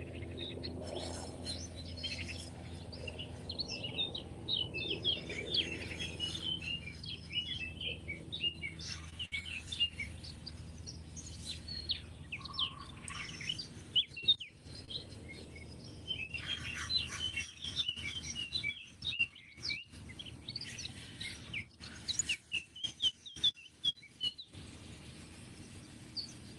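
Small songbirds chirping and twittering, many short high calls overlapping, with a low steady hum underneath during the first half.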